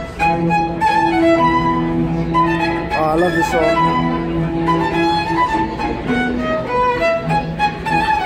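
Live string ensemble of violins and a cello playing a tune: a violin melody with vibrato over held low notes, starting right at the beginning.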